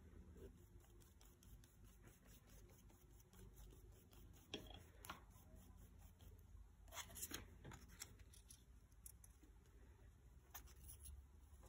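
Near silence, with a few faint scratches and rustles of a paintbrush and paper on a sketchbook page.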